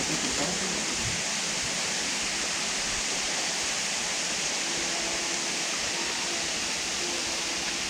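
River water rushing over rocks in a steady, even hiss.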